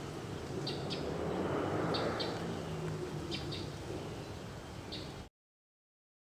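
Birds chirping, short high chirps mostly in pairs about every second, over a soft steady hiss of ambient sound. It all cuts off abruptly about five seconds in.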